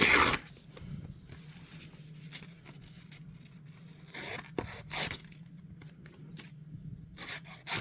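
Homemade W2 carbon steel slipjoint blade cutting through material in a sharpness test: short tearing, slicing strokes, the loudest right at the start and a few more later, around the middle and just before the end.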